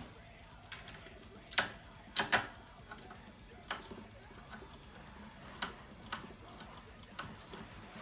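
Irregular clicks and knocks from electric kick scooter parts being handled and fitted during reassembly. The loudest three come close together about one and a half to two and a half seconds in, then fainter single clicks follow every second or two.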